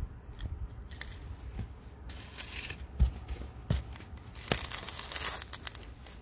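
Garden fork digging into snow-covered soil and levered over a plastic soil-pipe pivot: crunching of snow and earth, with three sharp knocks about halfway through.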